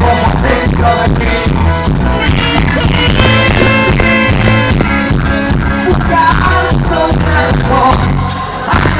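Loud live band music with a steady beat from drums and congas, and a man singing into a microphone. The music dips briefly near the end.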